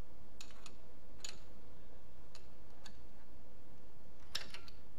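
Scattered light metallic clicks and taps of hand tools, an Allen key and an open-ended spanner, on the timing-belt tensioner of a Ford 1.8 16v DOHC engine as the tensioner is set back against its spring and the nut is tightened, over a steady low hum.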